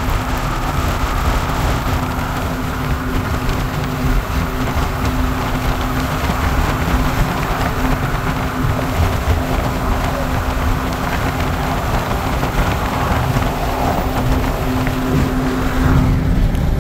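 Road and wind noise from inside a moving vehicle at speed: a steady rush with a low, even hum under it. The rush dulls a little near the end.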